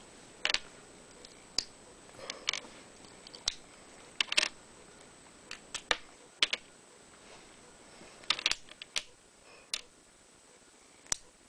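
A run of sharp, irregular clicks and taps, some in quick pairs or small clusters, like small hard plastic pieces being handled or clicked.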